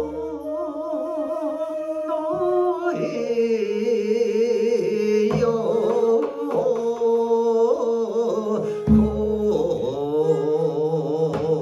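Sijo-chang: a male voice sings long, slowly wavering held notes, accompanied by a daegeum (Korean bamboo transverse flute) and a janggu (hourglass drum) struck only a few times, about every three seconds.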